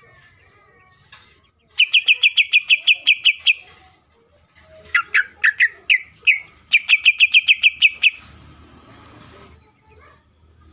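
A male greater green leafbird (cucak ijo) singing in a cage. It gives two rapid runs of sharp, repeated high notes, about seven a second, each lasting about a second and a half, with a few looser notes between them.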